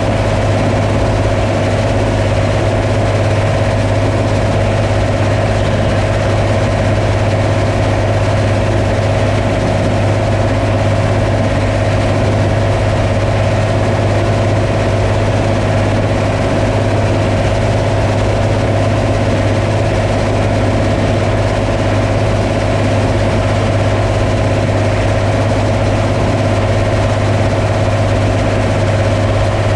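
Combine harvester running steadily: a constant loud machine hum with a deep drone and a steady higher whine that never changes.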